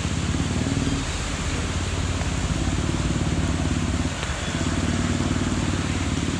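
A motor vehicle engine running close by with a rapid even pulse, dipping briefly about four seconds in and then picking up again, over a steady hiss.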